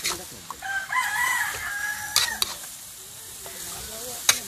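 A rooster crows once, a held call lasting about a second and a half, starting just under a second in. Around it, a metal spatula clanks and scrapes against a steel wok as meat is stir-fried, with sharp knocks near the start, after the crow and near the end.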